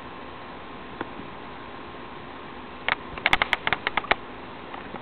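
Steady hum and hiss with one sharp click about a second in, then a quick flurry of about eight sharp clicks and taps a little before the end.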